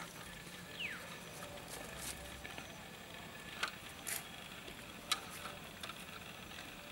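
Light handling noises of an aluminium drink can being fitted and tied onto a bamboo pole: a few sharp clicks and small scrapes, the loudest about five seconds in. A short falling whistle sounds about a second in.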